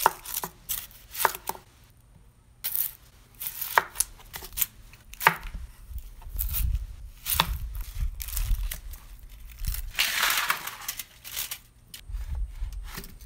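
Chef's knife slicing through whole unpeeled red onions into thick rounds, the blade knocking on a plastic cutting board in irregular strokes. A stretch of rustling comes about ten seconds in.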